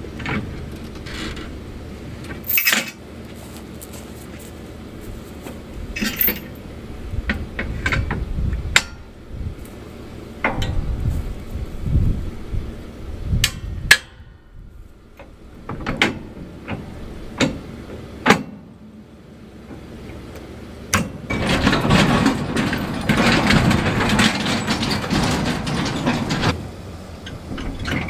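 Safety chains clinking and sharp metal knocks as a disc ripper is hitched to a pickup truck. Near the end there is a stretch of rushing noise lasting about five seconds.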